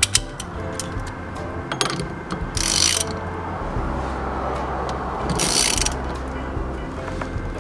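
A socket ratchet clicking in two short runs, about a second apart from the start of each, as it tightens the steering wheel hub's original nut onto the column, with soft background music underneath.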